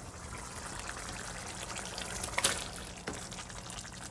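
Masala gravy bubbling and crackling in the pan, with a sharp knock about two and a half seconds in and a softer one shortly after as ghee-roasted paneer cubes are added.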